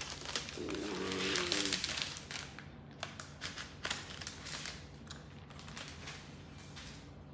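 Rustling and crinkling of the plastic wrapping sheet from a new laptop as it is unwrapped and handled, loudest in the first couple of seconds. Several light taps and clicks follow as the laptop and wrap are handled.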